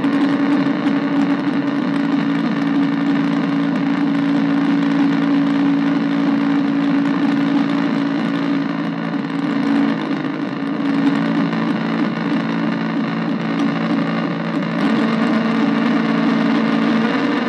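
Arturia MicroBrute analogue synthesizer cross-patched with a Casper Electronics Nova Drone, making a dense, buzzing noise drone through a bass practice amp. A steady low pitch holds, then the main tone drops a little lower about fifteen seconds in.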